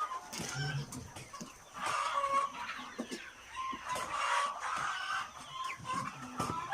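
A flock of chickens clucking, many birds calling over one another, with occasional short clicks.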